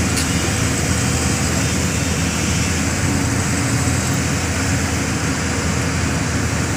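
Dump truck's diesel engine idling steadily, loud and unbroken.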